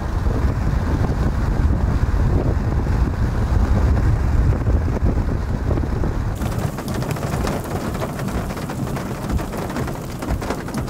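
Wind buffeting the microphone with a heavy, steady low rumble. About six seconds in it switches abruptly to a brighter hiss of wind and rain.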